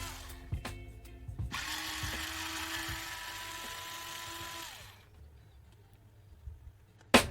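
A small electric motor whirring steadily, then winding down and stopping about five seconds in. A single sharp click comes near the end.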